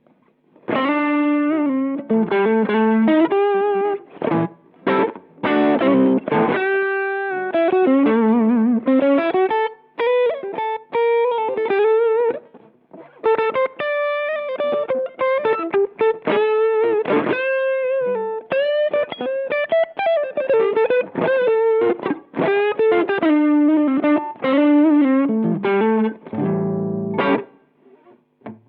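Electric guitar through a Boss SD-1 Super Overdrive pedal, mildly overdriven, playing a single-note lead line with string bends and short pauses between phrases. A fuller chord rings near the end.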